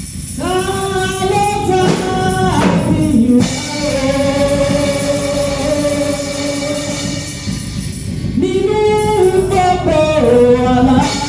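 Gospel singing with voices holding long notes over a rhythmic band accompaniment.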